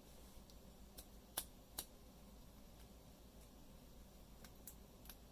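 A few faint, sharp metallic clicks from a pin-tumbler padlock being handled as its plug is turned back and forth to test it during reassembly. Two clearer clicks come a little under half a second apart, then a few lighter ticks near the end, over near silence.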